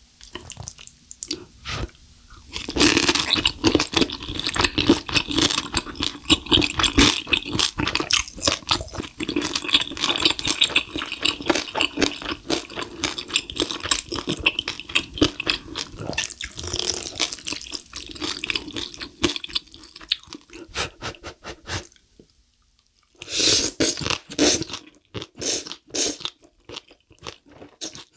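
Close-miked wet, sticky eating sounds: black bean sauce instant noodles being slurped and chewed. The sound is dense and continuous for most of the stretch, stops for about a second near the end, then comes back as separate slurps and chews.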